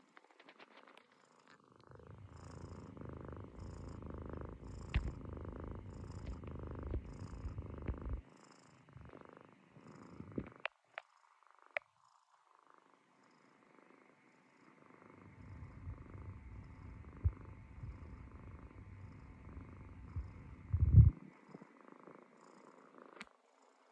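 Munchkin kitten snoring with a low, steady rumble in two long stretches, separated by several seconds of near quiet. The rumble swells briefly louder near the end.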